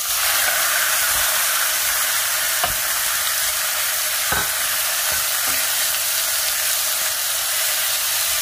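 Thin slices of marinated beef top round sizzling steadily in hot oil in a pan, with a few light knocks of a wooden spatula as the meat is moved about.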